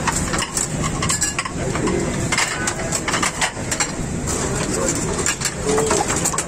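A metal ladle clinks against a steel soup pot and china plates as soup is served, with many sharp clinks over a steady hubbub of voices.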